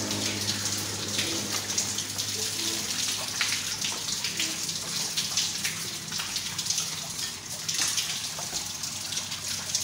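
Water splashing and pouring off a bucket as it is hauled up a deep well on a rope, dripping and splattering back into the water below.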